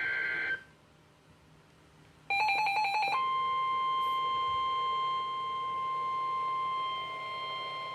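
NOAA Weather Radio alert: a brief burst of SAME digital header tones, then about a second of rapid beeping, then the steady 1050 Hz warning alarm tone from about three seconds in. The alarm tone announces a new warning broadcast.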